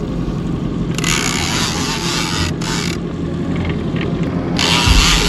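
Fishing reel's drag ratcheting in two long runs, the second starting near the end, as a hooked fish, likely a catfish (Wels), pulls line off the spool.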